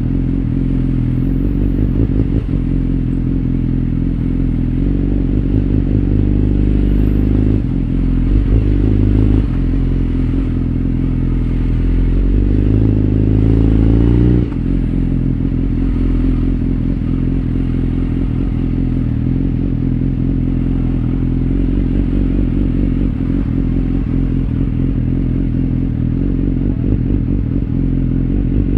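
BMW S1000R inline-four engine running at low revs as the bike creeps through slow traffic. Its pitch shifts with small throttle changes, climbs slowly about halfway through, then drops suddenly as the throttle closes.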